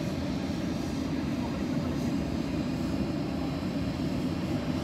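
Steady low rumble of jet aircraft and ground equipment on an airport apron.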